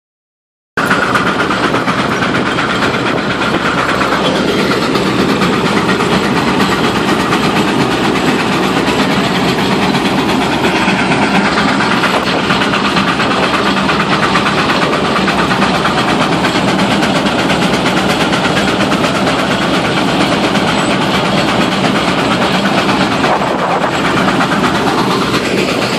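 Case steam traction engine working steadily under load as it pulls a plow through soil, a continuous dense mechanical running noise. A faint tone in it drops about four seconds in and rises again near the end.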